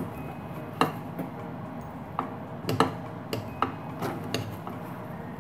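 Wooden spatula knocking and scraping against a stainless steel saucepan as a stiff, hot flour dough is stirred, giving irregular sharp taps about once or twice a second.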